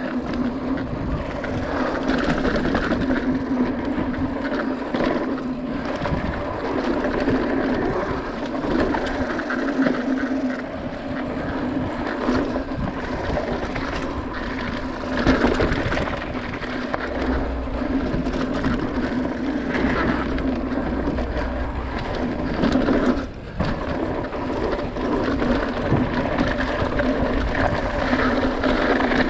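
Mountain bike descending a dirt trail, heard from a camera on the rider: wind rushing over the microphone, tyres rumbling and the bike rattling over bumps, with a couple of harder jolts.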